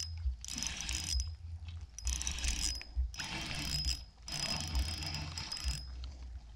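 Spinning reel being cranked in about five short bursts of whirring turns, stopping near the end, as line is reeled in with a hooked fish on.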